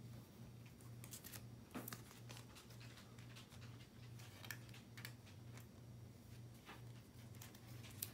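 Near silence with faint scattered clicks and taps of trading cards being handled, over a low steady hum.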